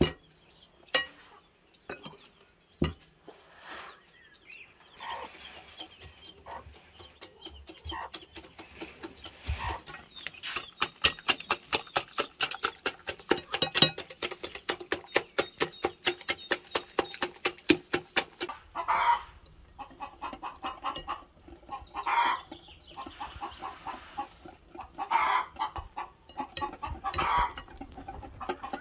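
Chickens clucking, with a long fast run of short, sharp clucks in the middle.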